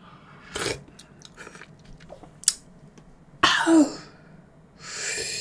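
Close-up mouth sounds of someone eating soft dragon fruit: small wet clicks and chewing, a short throaty grunt about three and a half seconds in, then a hiss lasting about a second near the end.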